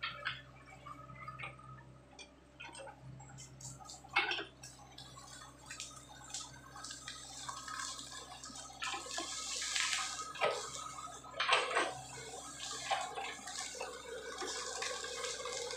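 Sany SY55C mini excavator at work: its diesel engine hums steadily underneath while the bucket digs through mud and palm fronds, with scattered knocks, clatter and wet splashing. The sharpest knock comes about four seconds in, and two more come in the second half amid rustling and scraping.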